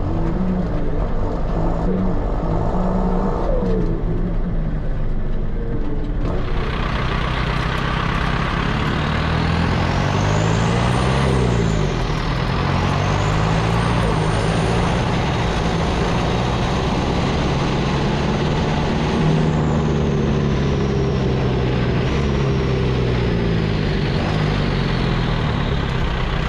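John Deere 6230's four-cylinder turbodiesel engine running, muffled inside the cab at first and then louder and brighter from about six seconds in. A high turbo whistle rises and falls in pitch as the engine revs up and back down.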